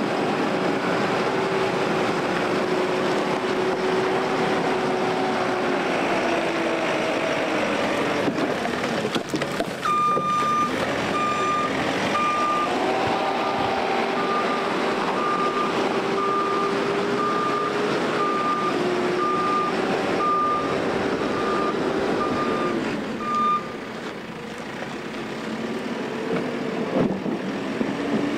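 JCB backhoe loader's diesel engine running under load, its pitch dropping and rising again as the machine works. From about ten seconds in, a reversing alarm beeps steadily, roughly once a second, for about thirteen seconds.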